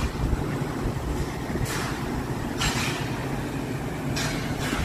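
Shipyard dock ambience: a steady low rumble of machinery, with short hissing bursts every second or two.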